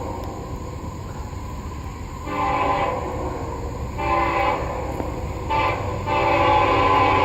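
Nathan K5HLL five-chime air horn on a GE CW44AC diesel locomotive sounding four blasts: two medium blasts, a short one and a longer final one. A low rumble from the moving train runs underneath.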